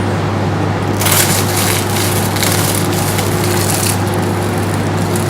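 Knife cutting through a flaky croissant, its crisp layers crackling and shattering into shards, densest from about a second in and thinning out near the end. A steady low hum sits underneath.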